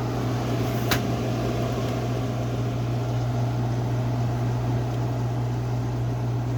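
Vintage Kenmore 8,000 BTU window air conditioner running on high: a steady rush of air from its fan over a strong, steady low hum. One short click about a second in.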